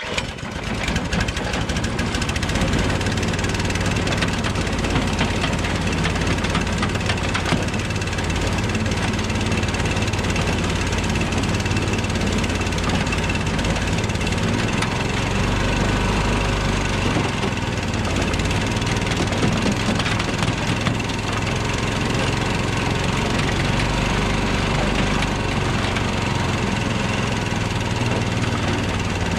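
Small gasoline engine starting right at the beginning and then running steadily, driving a hay-elevator conveyor whose bearings have just been replaced.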